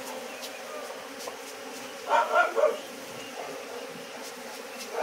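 A colony of honeybees buzzing steadily in large numbers, stirred up by the hive being opened and smoked. A short louder sound breaks in about two seconds in.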